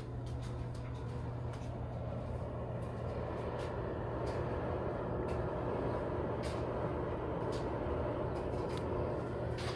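Warm exhaust air rushing steadily out of a GE GFD55ESSNWW dryer's exterior vent hood while the dryer runs its drying cycle, over a low steady hum.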